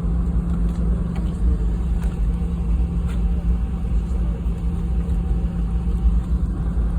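Steady low rumble and hum of a Boeing 717-200 airliner's cabin, with its engines and air systems running at a constant, low power.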